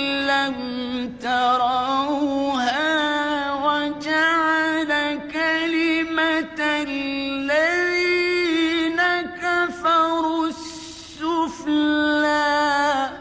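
A man chanting Quran recitation in the melodic mujawwad style. He holds long, ornamented notes that waver in pitch, with short pauses for breath between phrases.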